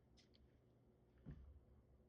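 Near silence: room tone, with a few faint clicks near the start and a soft thump about a second and a quarter in.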